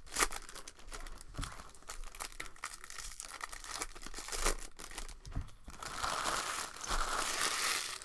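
Foil wrapper of a Bowman Draft baseball card pack crinkling and tearing as it is pulled open by hand, with quick crackles throughout and a denser run of tearing over the last couple of seconds.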